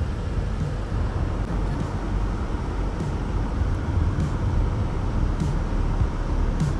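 Steady low rumble of motor vehicle road noise, with a few faint clicks.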